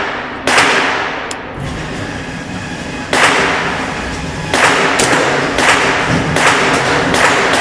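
Gunshots from a semi-automatic rifle, each a sharp crack with an echoing tail. A few shots come seconds apart, then a rapid string of about eight follows from about four and a half seconds in.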